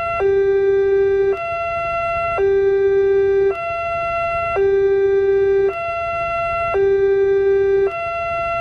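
Indonesian railway level-crossing alarm sounding a steady two-tone hi-lo pattern: a higher and a lower tone alternating evenly, each held about a second.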